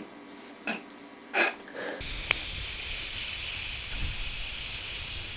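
A few short, separate sounds, then about two seconds in a steady hiss like static starts abruptly.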